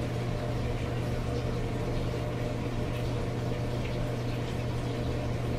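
A steady low hum fills the room. Over it come a few faint, light taps and scrapes of a spoon scooping soft baked potato into a glass bowl.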